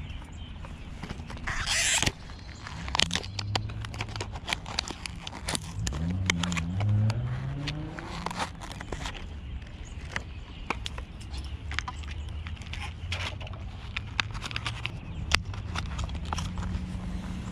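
Irregular clicks and rustles of fishing gear being handled, including a clear plastic lure packet, over a low steady rumble. A loud hissing rustle about two seconds in, and a short rising pitched sound with a few overtones about six seconds in.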